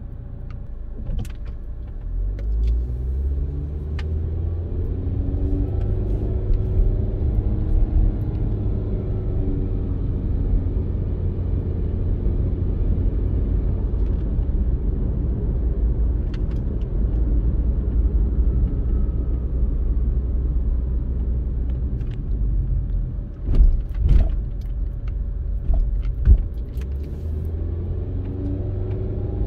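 A car pulling away and accelerating, the engine note rising over the first several seconds, then a steady engine and tyre rumble at speed. Three loud thumps come a few seconds before the end, and the engine note rises again near the end.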